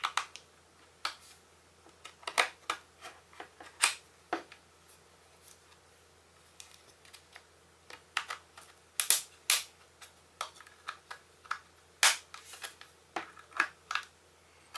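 Irregular sharp clicks and snaps from an iPod classic's case as a pry tool works along the seam between the front shell and the metal back, the retaining clips giving way. The clicks come in loose clusters, the loudest about nine and twelve seconds in.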